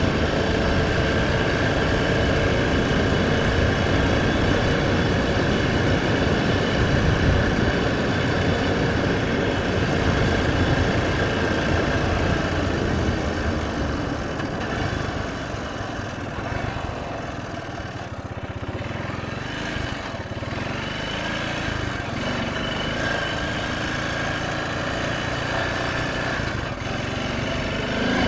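Honda ATV engine running under way, with wind rushing over the microphone. Louder for the first half, it eases off to a quieter, lower run for the second half.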